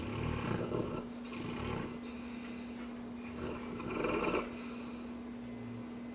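Cane Corso snoring in its sleep: three rough snoring breaths, the last and loudest about three and a half seconds in, over a steady low hum.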